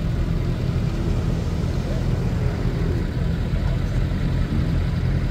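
Off-road vehicle's engine running steadily, a low rumble.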